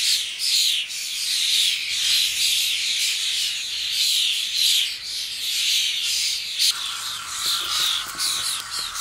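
Juvenile common starlings giving harsh, rasping begging calls over and over, about two or three a second, a noisy chorus of several birds. About two-thirds of the way through, a steady lower hiss joins them.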